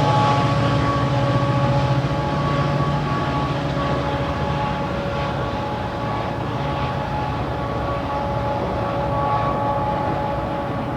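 GO Transit diesel commuter train running, a steady rumble with a held whine of several tones over it.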